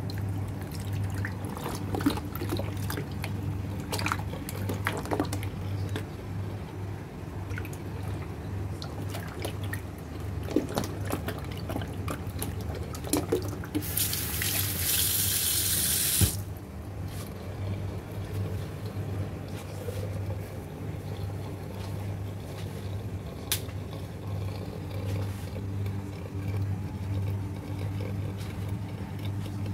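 Raw lungs being washed and handled by hand in a stainless steel sink: scattered wet squelches and small knocks, with the tap running onto them for about two seconds near the middle. A steady low hum sits underneath.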